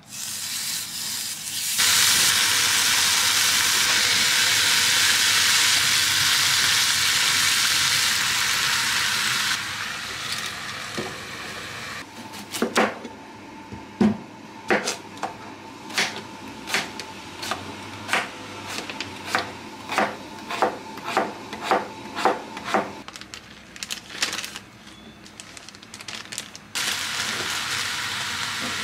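Food sizzling in a hot pan for several seconds. Then a kitchen knife chops a daikon radish on a cutting board in about twenty sharp strokes, speeding up to about two a second. Near the end, frying starts again as cabbage, pork and yakisoba noodles sizzle in a frying pan.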